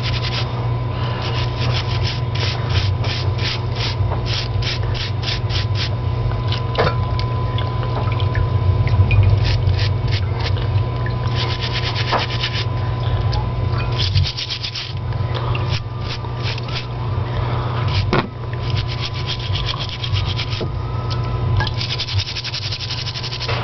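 Stiff-bristled scrub brush scrubbing green hair algae off a wet piece of live rock, in runs of rapid back-and-forth strokes, about five a second, with short pauses between the runs.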